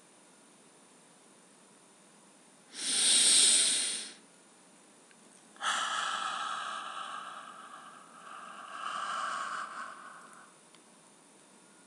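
A man's loud breathing close to the microphone. First a short, hissing blow about three seconds in. Then, from about halfway, a longer breathy exhale like a whispered vowel that fades out.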